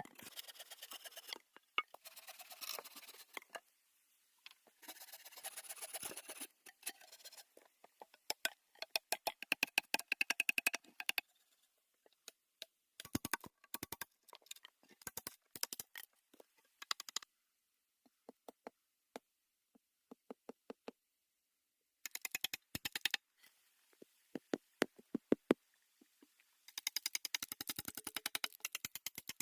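Rapid runs of sharp clicks and light knocks, in short bursts separated by silent gaps.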